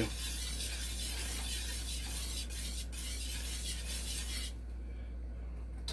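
Thick white gravy being stirred and scraped with a spatula in a stainless steel skillet, a steady soft rasping that falls away about four and a half seconds in.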